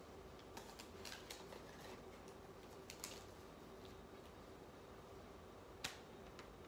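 Near silence: room tone with a faint steady hum, a few faint clicks in the first half, and one sharper click about six seconds in.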